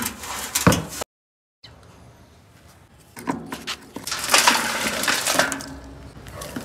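A stainless steel kitchen sink knocked twice as it is handled on a stone floor, then a brief dropout to silence. Later a stone is set over its drain and garden soil with small stones is tipped into the steel basin, rattling and scraping against the metal.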